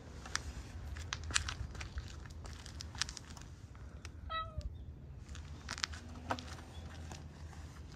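Orange tabby cat giving one short meow about four and a half seconds in, over scattered light clicks and taps.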